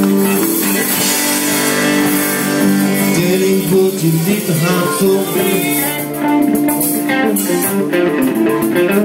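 Live rock band playing an instrumental passage, with electric guitar to the fore over bass.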